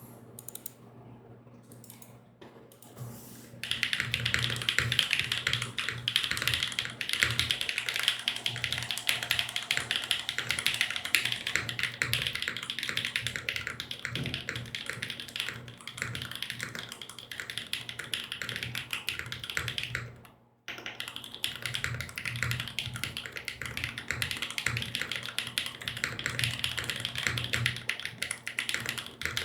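Fast typing on a mechanical keyboard, an OTD 356CL with a full aluminum plate, Kailh BCP switches and GMK doubleshot keycaps. It starts a few seconds in, with a brief stop about two-thirds of the way through. Dull thuds from the desk carry under the key clacks.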